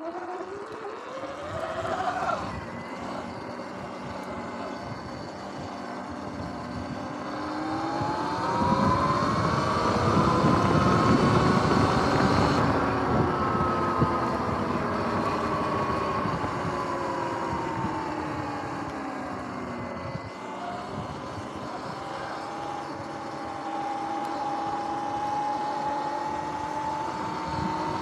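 Sur-Ron X electric dirt bike's motor and drivetrain whine, rising in pitch as the bike speeds up, peaking about ten seconds in, easing back down and then holding steady. Wind noise on the microphone swells with the speed.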